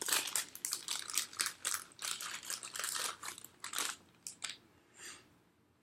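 A thin plastic bag crinkling and rustling as a phone is handled and pulled out of it, thick for about four seconds, then a few separate clicks and a last short rustle.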